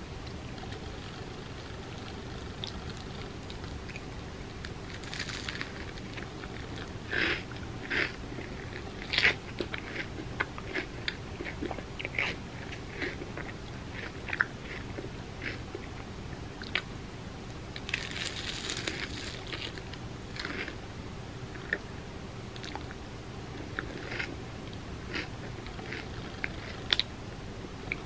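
Close-up eating sounds: biting into and chewing crispy fried mochi bread, with scattered sharp crunches and crackles, the loudest about nine seconds in, and a longer crackling stretch a little past halfway.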